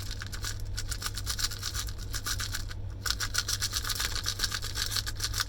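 Small silver electrical contacts salvaged from circuit breakers rattling and clattering as they are shaken or poured out of a container, a rapid run of clicks that breaks off briefly about three seconds in.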